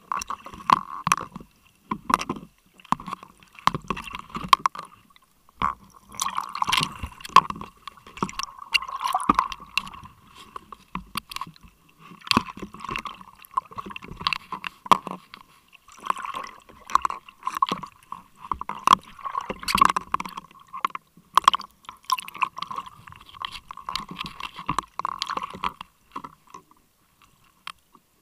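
Water sloshing, gurgling and splashing at the surface, heard through a waterproof camera housing held just under the water, in irregular surges with sharp knocks.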